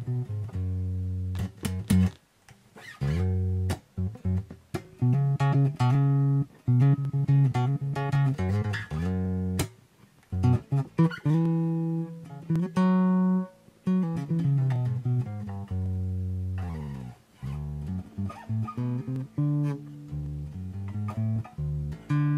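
Harley Benton PB Shorty short-scale electric bass with a passive precision pickup, played through a Zoom G1Four multi-effects unit. A run of plucked notes and riffs, with a slide down in pitch about three quarters of the way through.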